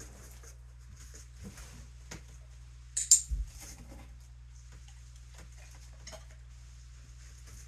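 Light clinks and ticks of small hard objects, with one louder clatter and thud about three seconds in, over a steady low hum.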